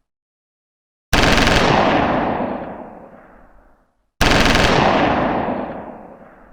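Two bursts of automatic machine-gun fire, the first about a second in and the second about three seconds later. Each cuts in sharply and then trails off in a long echoing decay.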